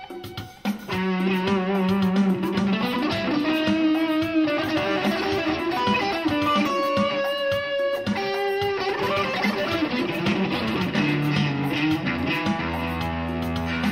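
Electric guitar playing a melodic lead line of single held notes, with a brief break just under a second in. Low sustained notes come in underneath near the end.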